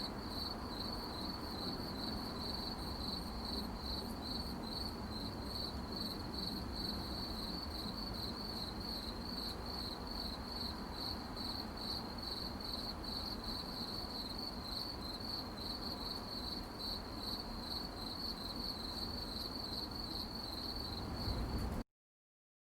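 Crickets chirping at night, a steady high pulsing trill over a low background noise. It cuts off abruptly near the end.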